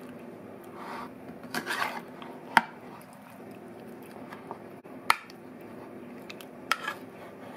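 Metal spoon stirring and turning chunks of raw swordfish in an oily marinade in a ceramic bowl: soft wet squishing, with two sharp clinks of the spoon against the bowl, about two and a half seconds apart, over a steady low hum.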